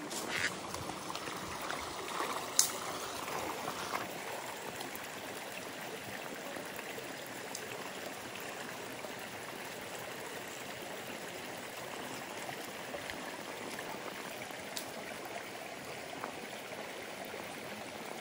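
Shallow, stony mountain river running steadily, an even rushing hiss of water over stones, with a few brief sharp splashes in the first few seconds as someone wades in.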